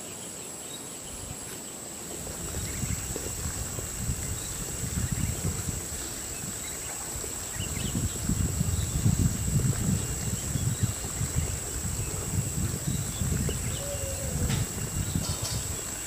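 Evening chorus of insects, a steady high-pitched drone. From about two seconds in, an uneven low rumble swells and fades under it.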